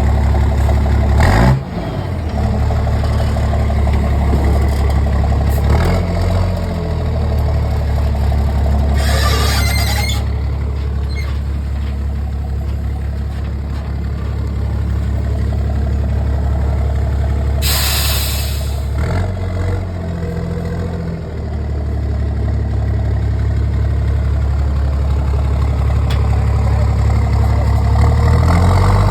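Ford Cargo 2422 truck's diesel engine running through a straight-through exhaust with no muffler, mostly at idle. The pitch drops about a second and a half in, shifts briefly around 6 and 20 seconds in, and rises near the end. Two loud hisses of released air come about 9 and 18 seconds in.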